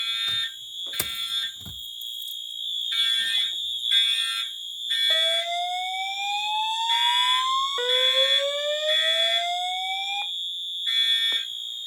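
Fire alarm notification appliances sounding in evacuation: a horn tone pulsing in groups of three, the temporal-3 evacuation pattern, over a steady high-pitched tone. Two slow rising whoop sweeps sound between about five and ten seconds in.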